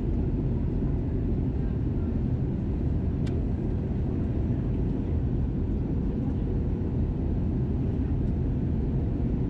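Steady cabin noise of an Airbus A320 airliner in flight, heard from inside the cabin: an even low rumble of engines and airflow with a faint steady tone, and a faint click about three seconds in.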